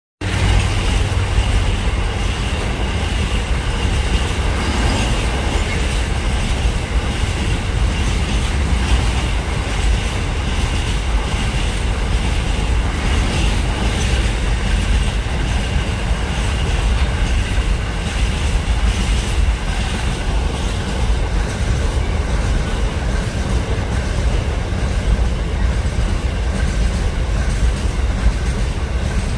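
Container freight train passing close by at speed: a steady loud rumble of wagon wheels on the rails, with a thin high tone running above it.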